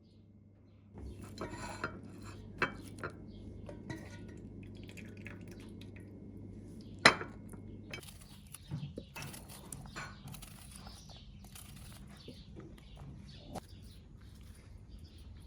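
Cutlery and dishes clinking: a run of small knocks and clinks that starts about a second in, the sharpest one about seven seconds in.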